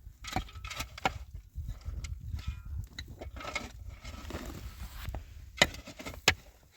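Irregular knocks and clatter, like materials being handled, over a low rumble, with two sharp knocks near the end.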